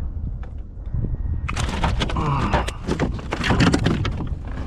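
A freshly caught seatrout flopping against the kayak: a busy run of knocks and rattles that starts about a second and a half in.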